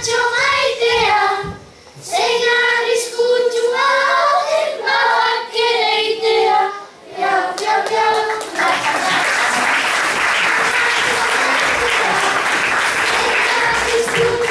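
Group of children singing a Basque verse together, the song ending about eight seconds in, followed by audience applause.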